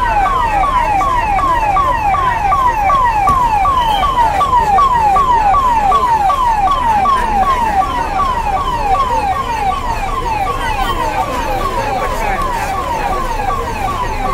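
Vehicle siren sounding a fast, repeating downward-sweeping wail, about three falling whoops a second, starting abruptly at the outset and keeping up without a break.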